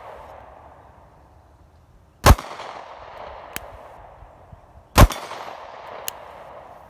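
Two shots from a Sig P365 9mm compact pistol, about two and a half seconds apart, each followed by an echo that trails off over a couple of seconds.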